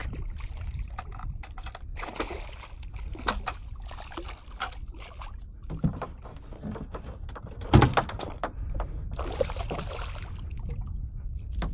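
Irregular splashes, knocks and clicks from a kayak and rod being handled while a hooked snook is fought alongside, over a steady low rumble. The loudest knock comes about two-thirds of the way through.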